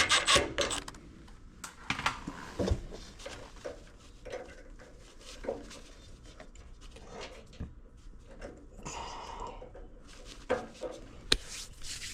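Hand work on a furnace: scattered clicks, small knocks and rustling as parts and tools are handled, with a short stretch of rubbing or scraping about nine seconds in.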